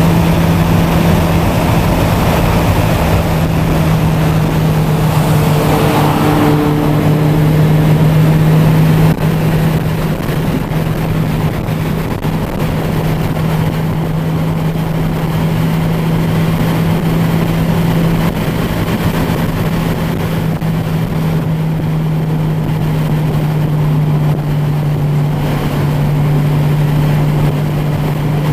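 Car engine droning steadily at motorway cruising speed, with tyre and wind noise, heard from inside the cabin. The overall level dips slightly about nine seconds in.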